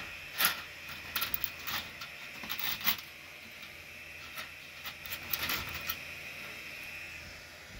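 Ortur diode laser engraver at work: a thin, steady high whine from the machine, with scattered clicks and rattles over the first six seconds. The whine fades out about seven seconds in.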